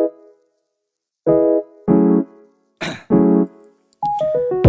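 Background music: short electric-piano chords with silent gaps between them and a single sharp percussive hit, then a falling run of notes near the end.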